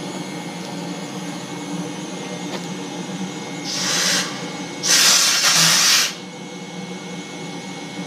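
Steam-converted 8 hp single-cylinder engine running steadily, with steam venting beside it in loud hisses: a short one about four seconds in, then a louder one lasting about a second.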